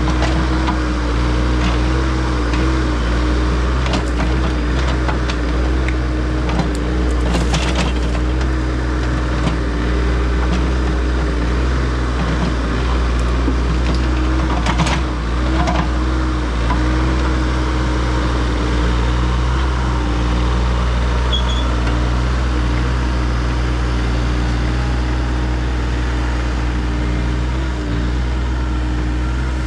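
Excavator's diesel engine running steadily under load with a wavering hydraulic whine, as it spreads dirt. A few short knocks and scrapes, about a quarter of the way in and again about halfway.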